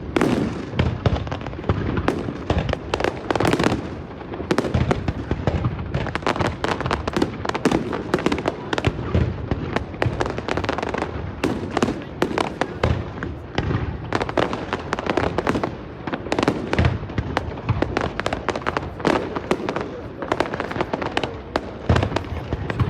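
Fireworks display with shells bursting and crackling in rapid, unbroken succession, several bangs a second.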